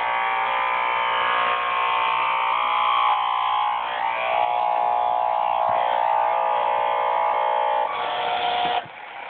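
Small AM radio tuned between stations, its speaker buzzing with electromagnetic interference picked up from a plasma TV; the tone of the buzz shifts as the TV picture changes. Near the end the buzz drops away sharply, leaving a fainter hiss.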